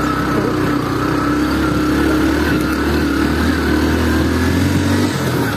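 Small motorcycle engine running at a steady pace under way. The note wavers only slightly, and its deep low hum drops away shortly before the end.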